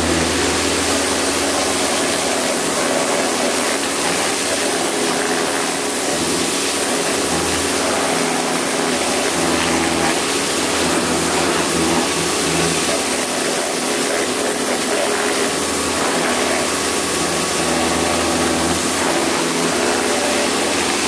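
Kärcher K2 electric pressure washer running steadily, its pump motor humming under the loud hiss of the dirt blaster lance's water jet as it blasts caked grass off the underside of a metal lawnmower deck.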